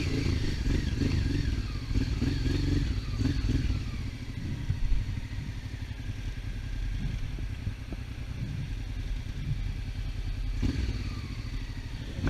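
Honda Africa Twin XRV750's V-twin engine running as the bike rides a dirt track, with clatter from the bike over the rough ground.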